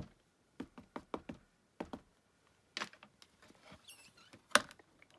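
Ink pad dabbed again and again onto a clear stamp held in the lid of a Mini Misti stamp positioning tool: a run of faint, quick taps. Just past four and a half seconds in comes a louder knock as the hinged lid is swung shut onto the paper.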